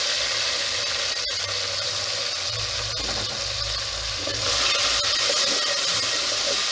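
Chopped tomatoes sizzling in hot oil with fried onions in a metal pot while a wooden spoon stirs them. The sizzle is a steady hiss that swells a little about four and a half seconds in.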